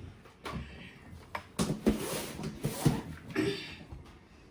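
Pans and kitchenware being handled: a string of knocks and short clattering noises, busiest in the middle.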